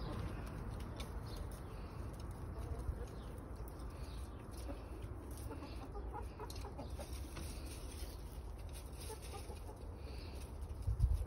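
Brown hens clucking now and then as they forage, short scattered clucks over a steady low background rumble.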